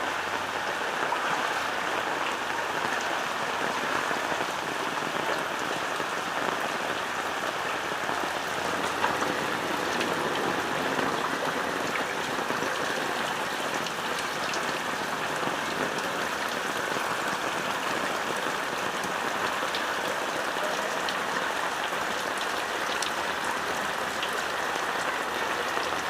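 Heavy rain falling steadily: a dense, even hiss with scattered sharp drop ticks.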